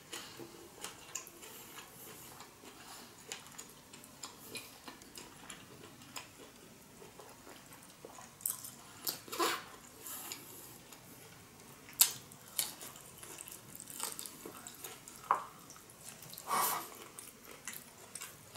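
Close-miked wet chewing and mouth smacks of a person eating sushi, as scattered small clicks with a few louder smacks in the second half.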